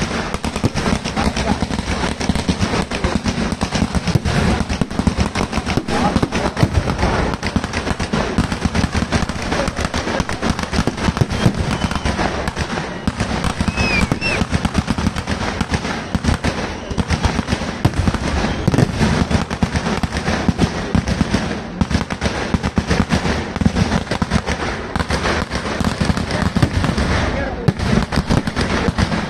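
A vedikkettu fireworks display going off: a dense, continuous run of firecracker and aerial-shell bangs and crackling, with no pause. A few brief whistles are heard about midway.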